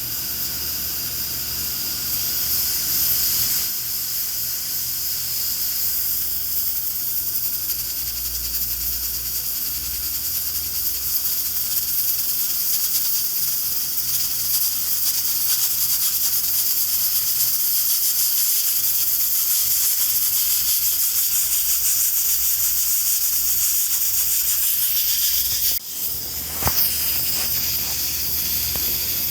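Pressure cooker venting steam through its valve: a steady high hiss, with a brief break near the end.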